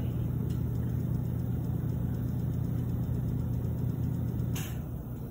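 A steady low machine hum that cuts off with a sharp click about four and a half seconds in.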